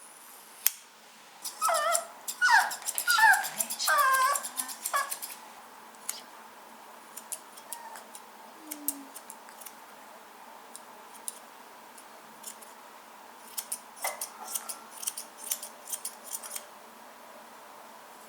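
Toy poodle puppy whining in a run of high, wavering cries for a few seconds. Then grooming scissors snip in short, scattered clicks through the rest.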